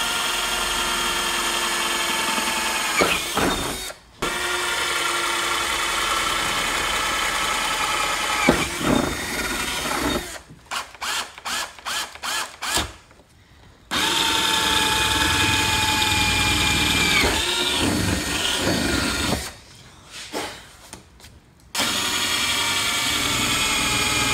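Black & Decker power drill with a gold drill bit boring holes through a rear spoiler into a car's trunk lid: long steady runs of the motor whine, broken by a few short stops, with a run of quick on-off trigger pulses around the middle.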